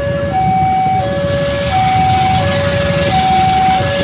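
Railway level-crossing warning alarm sounding a steady two-tone ding-dong, alternating high and low tones of about 0.7 s each, which warns that a train is approaching. Under it is the low rumble of queued motorcycle engines idling.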